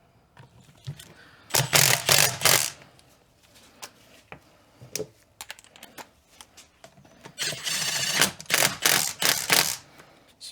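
Small Milwaukee cordless power tool running down the bolts of a differential cover, in two rattling bursts: a short one about a second and a half in and a longer one near the end, with light clicks of bolts and sockets between.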